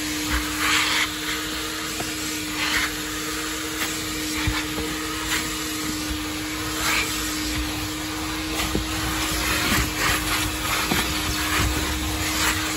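Car wash vacuum running with a steady hum and hiss as its nozzle is worked over truck floor carpet. Short irregular rushes of higher hiss come every second or two as it passes over the carpet picking up debris.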